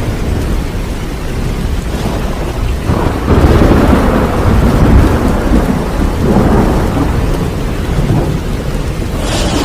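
Heavy rain falling steadily through a thunderstorm, with thunder rumbling: a long low roll swells about three seconds in, peaks around five seconds and fades slowly, and a sharper clap comes near the end.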